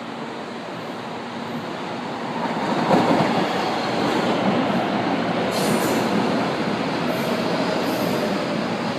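São Paulo Metro train pulling into the station and passing close by along the platform. Its running noise builds to its loudest about three seconds in and then stays loud, with a brief high hiss around six seconds in.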